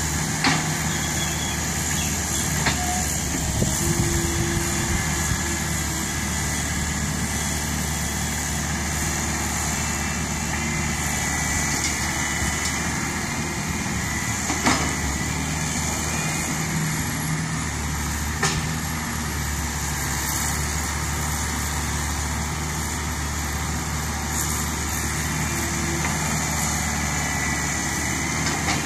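Komatsu hydraulic excavator's diesel engine running steadily as it digs and loads soil into a dump truck, with a few sharp knocks.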